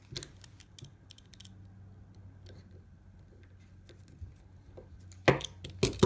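Hand crimping tool closing on a wire's contact pin: a few faint clicks, then two loud, sharp snaps near the end as the crimp is finished.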